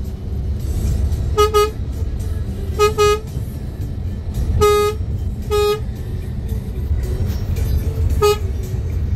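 Vehicle horn giving a string of short toots: two quick double toots in the first three seconds, then three single toots spread over the rest. Underneath is the steady low rumble of a moving vehicle's engine and road noise.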